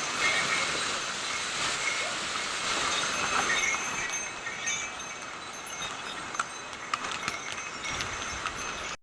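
Small bells jingling over a steady rushing noise, with a few sharp hoof-like clicks in the second half, as from pack ponies on a stone trail.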